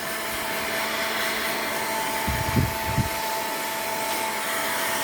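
Hair dryer blowing steadily, with a constant whining motor tone over the rush of air, drying a kitten after its bath. A few brief low bumps come a little over two seconds in.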